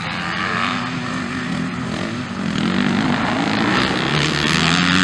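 Motocross bike engines racing on a dirt track, revving up and down as the riders work the throttle, getting louder from about halfway through.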